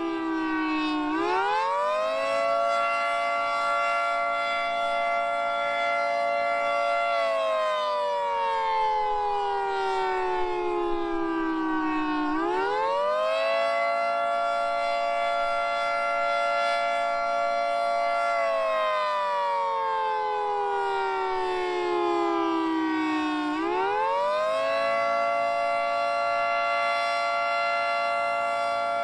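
Federal Signal 2T22 dual-tone outdoor warning siren sounding the Attack wail. The pitch rises over about a second and a half, holds steady for about five seconds, then slides down over about five seconds. The cycle repeats roughly every eleven seconds.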